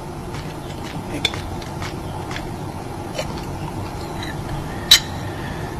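Porcelain lid of a covered teacup (gaiwan) clinking lightly against the cup a few times, the sharpest clink near the end, over a steady background hiss.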